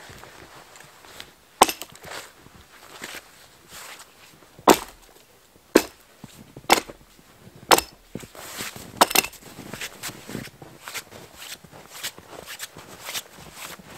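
Axe chopping wood: sharp, irregular strikes roughly once a second, with lighter knocks and scraping between them.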